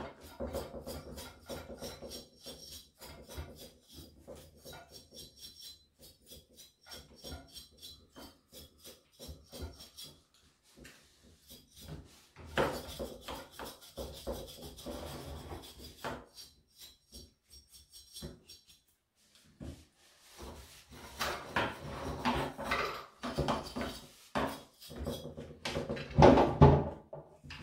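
A small brush scrubbing the cooling fins of a Husqvarna chainsaw cylinder in quick scratchy strokes, with louder rubbing and clunks near the end.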